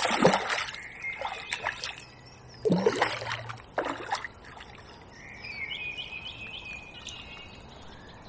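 Hooked tench splashing and thrashing at the surface close in as it is played: a few short splashes in the first four seconds. A bird then sings with chirps in the background.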